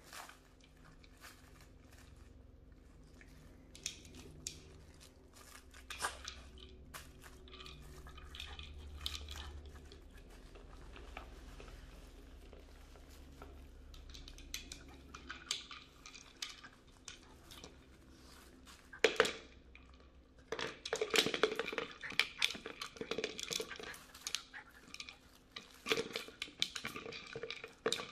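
Hard plastic treat-dispensing dog toys being nosed and pushed around by two dogs: scattered clicks and knocks of the toys and the treats rattling inside them. The clatter grows busier and louder from about two-thirds of the way in, as a toy is knocked across the wooden floor.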